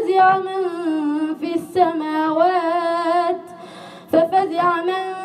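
A boy's voice reciting the Quran in melodic chant, drawing out a long ornamented note that wavers in pitch. About three and a half seconds in he pauses briefly for breath, then the chant resumes.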